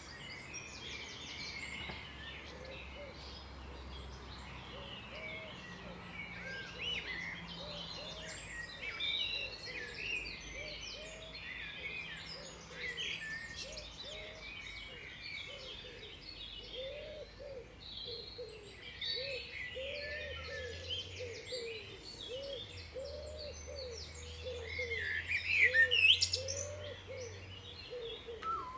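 A chorus of wild songbirds chirping and singing over one another, with a low, short note repeated steadily beneath them for most of the time. A loud rising call stands out near the end.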